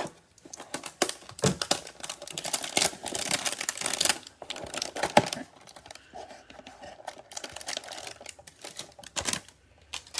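A cardboard trading-card hanger box being torn open and its cellophane-wrapped card stack handled: dense crackling and crinkling of card stock and plastic wrap, busiest in the first half and lighter after.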